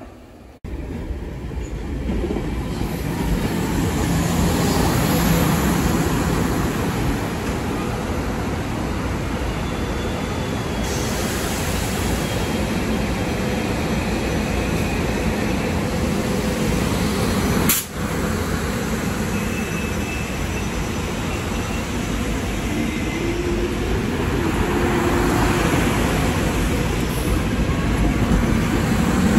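SEPTA Regional Rail electric train moving along the station platform: a steady rumble of wheels on rails that starts abruptly just after the beginning. A single sharp click comes about 18 seconds in.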